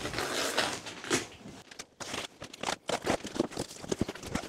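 A large cardboard shipping box being handled: rustling and crackling for the first second or so, then a run of irregular light knocks and taps.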